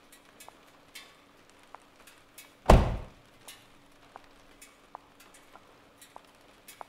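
A BMW saloon's door shut with a single heavy thunk, followed by high-heeled shoes clicking on a concrete floor, about two steps a second, over a faint steady hum.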